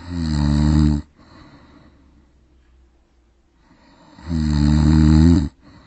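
A man snoring loudly. There are two long snores about four seconds apart, each a deep, buzzing in-breath lasting about a second; the second is slightly longer.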